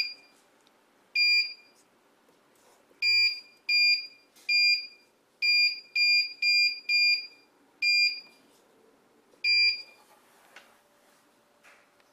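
Keypad beeps from an Anyload 805BS digital weight indicator: about ten short, high beeps at irregular intervals, one for each key press, as the calibration test weight is keyed in digit by digit. A few faint ticks near the end.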